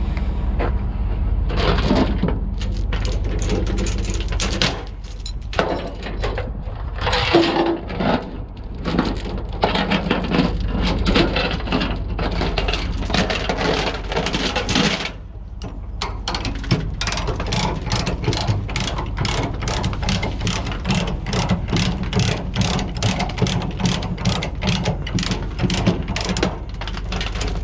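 A ratchet mechanism clicking over and over, irregularly at first and then in a fast, even run of about three to four clicks a second through the second half, over a steady low engine hum.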